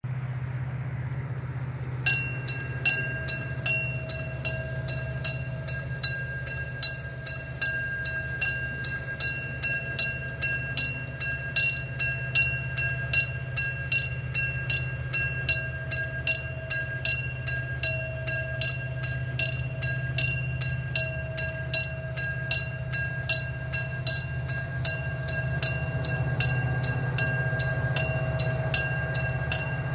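Level crossing warning bell starting about two seconds in and ringing in rapid, regular strikes as the crossing activates for an oncoming train. Under it, the steady low rumble of an approaching diesel locomotive working uphill, growing louder near the end.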